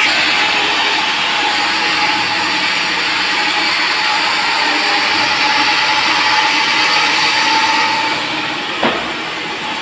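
Sawmill saw cutting through a teak log: a steady, loud mechanical rush with a held whine that eases slightly near the end, and one short click shortly before the end.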